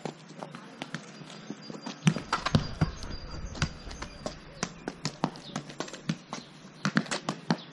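A football being dribbled and kicked on a paved street, with quick scuffing footsteps: irregular light taps and thuds, several a second. A brief low rumble on the microphone about two seconds in.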